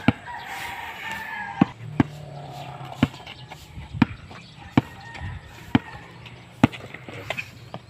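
A basketball is dribbled on a concrete road, with a sharp bounce about once a second. A rooster crows in the first couple of seconds.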